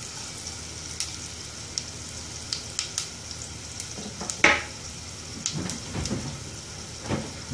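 Garlic, curry leaves and mustard and cumin seeds sizzling in hot oil in a small nonstick saucepan, with scattered sharp crackles and pops of the tempering; the loudest pop comes about four and a half seconds in.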